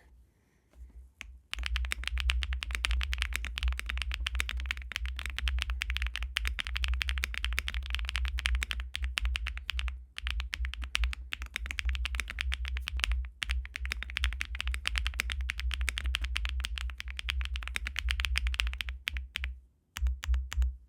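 Typing sound test on a QK80 MK2 mechanical keyboard with HMX Azure linear switches, JTK HSA keycaps, an FR4 plate and its stock foams: fast, continuous keystrokes starting about a second and a half in, with two short pauses midway.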